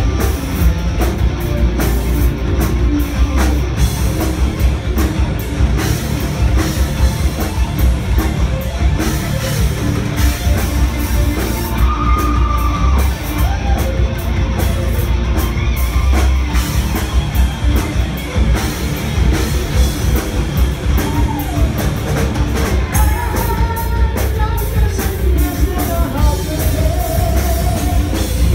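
Heavy metal band playing live: distorted electric guitars, bass guitar and drum kit, loud and continuous, with melodic lead lines standing out near the middle and again towards the end.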